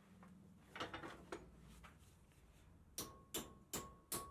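Hammer blows on cold sheet steel clamped in a bench vise, bending it over the vise jaw. After a few light knocks about a second in, sharp strikes come about two and a half a second in the last second or so, with a ringing metal tone carrying between them.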